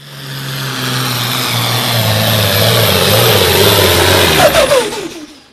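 Pulling tractor's diesel engine running hard and growing steadily louder as it approaches. Near the end the pitch falls as it passes close, then the sound stops abruptly.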